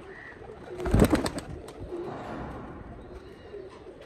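Pigeons cooing softly in a loft, with a short loud flurry of wingbeats about a second in as young pigeons are let go.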